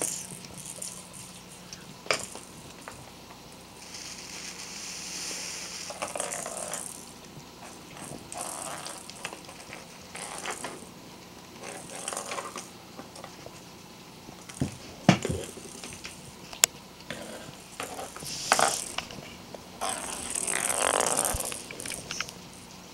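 A ferret playing with ball toys on a hardwood floor: irregular rustling and scuffling, with a few sharp knocks.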